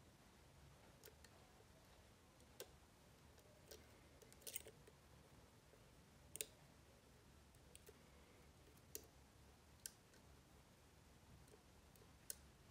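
Faint, irregular metallic clicks of a dimple pick working the pins inside an Avocet ABS dimple lock, about ten in all, with a small cluster about four and a half seconds in and the loudest click about six seconds in.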